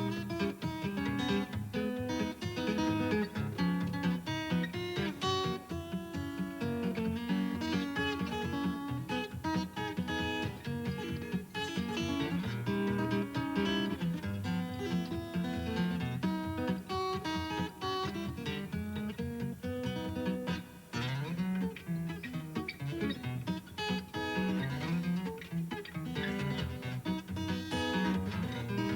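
Solo guitar thumbpicked in the Muhlenberg County style: steady alternating bass notes under a picked melody.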